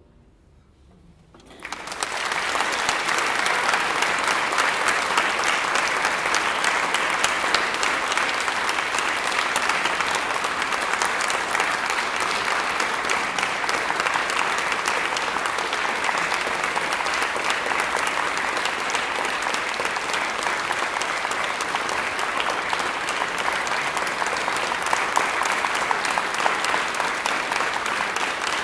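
A moment of near silence as the last chord dies away, then a small audience applauding steadily from about two seconds in.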